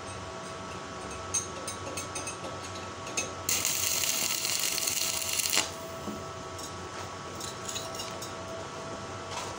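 Stick (arc) welding on a steel paving-block mould: a few light clicks, then about two seconds of crackling, hissing arc that stops abruptly as the electrode is pulled away; light metal clicks follow.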